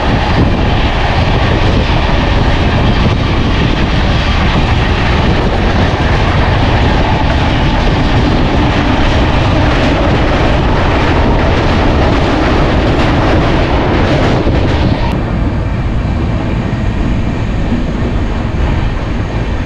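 Express train running on the rails, heard from an open coach doorway: loud steady rumble and rushing noise with wheel clatter. About fifteen seconds in, the higher rushing part drops away suddenly and the running noise continues more softly.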